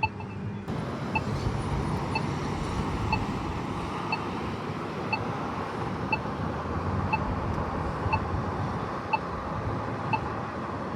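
Polara iNS2 accessible pedestrian signal push button sounding its locator tone, a short tick about once a second, during the don't-walk wait, over steady passing road traffic.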